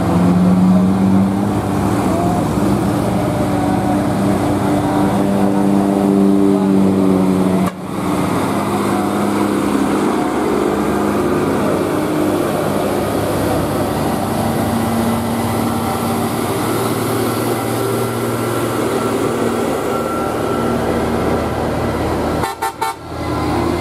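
Heavy diesel trucks climbing past, engines running hard under load, with long steady horn blasts sounding over the first several seconds. The sound breaks off for an instant about eight seconds in and again near the end.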